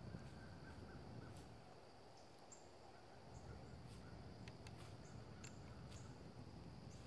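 Near silence in woodland: a faint steady insect drone with scattered faint ticks and crackles.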